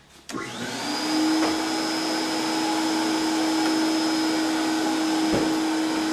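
Vacuum motor of a homemade pneumatic tube system switching on and spinning up over about a second, then running with a steady whine. A single knock about five seconds in.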